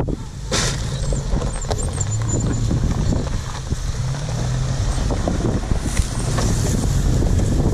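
Ford Maverick SUV's engine running at low speed as it comes down a dirt mound and rolls past close by, with tyres crunching over gravel and loose stones. The engine sound grows a little louder as the vehicle nears.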